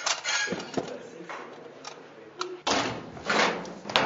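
Small objects being handled on a table: a few clicks and knocks, then a longer scraping, rustling noise near the end that stops with a sharp click.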